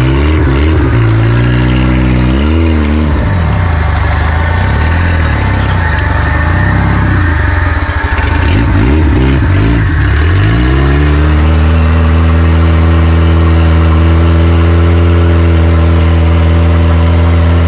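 Off-road 4x4 vehicle's engine revving up and down through the first ten seconds or so, then settling into a steady, even running note for the rest.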